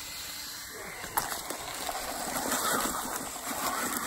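A small knock about a second in, then rustling in dry leaf litter that grows louder as an electric RC truck drives off over the forest floor.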